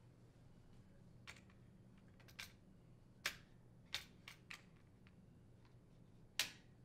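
Plastic dishwasher rack adjuster assembly clicking and knocking against the wire upper dish rack as it is lined up and snapped into position: several short, sharp clicks spread out, the loudest near the end.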